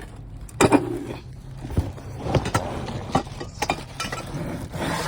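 Parts of a sports rebounder being handled and pulled from their box: a series of irregular knocks and rattles with rustling between, the sharpest knock about half a second in.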